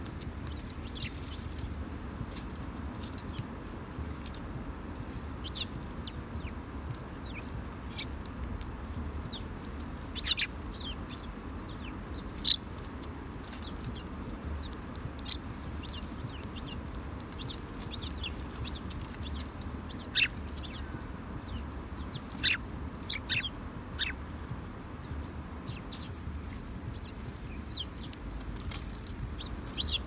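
Eurasian tree sparrows chirping in short, scattered calls as the flock feeds, with a few louder chirps standing out, over a steady low background rumble.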